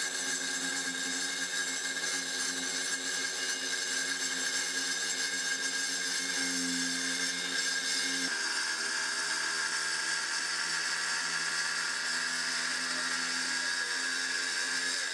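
Porter-Cable circular saw with a diamond blade running steadily as it cuts through a granite countertop slab, a continuous motor whine with a gritty hiss. The pitch shifts slightly about eight seconds in.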